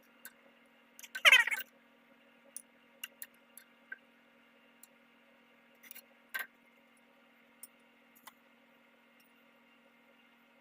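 Steady electrical hum of a microwave oven running while it cooks eggs on a three-minute timer, with a short louder sound about a second in and a few faint clicks.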